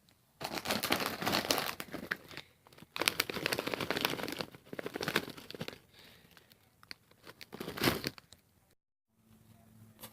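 A crinkly plastic bag of Hot Fries snacks rustling as a hand reaches in and pulls chips out. There are two long bursts of crinkling, then lighter, scattered crinkles.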